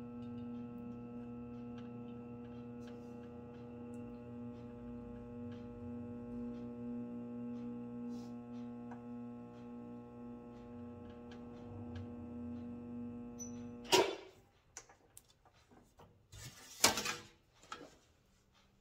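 Motorized bead roller running with a steady, even-pitched hum as it rolls a border bead into sheet metal, stopping suddenly about three-quarters of the way through. Two sharp knocks follow, about three seconds apart.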